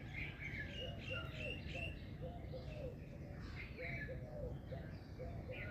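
A chorus of birds chirping and singing, with quick overlapping high chirps and a lower short note repeating about three times a second, over a steady low background rumble.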